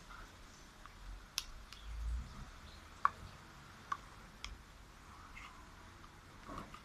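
Slime being mixed, giving scattered sharp sticky clicks and small pops, about five in all, with a soft squelch near the middle.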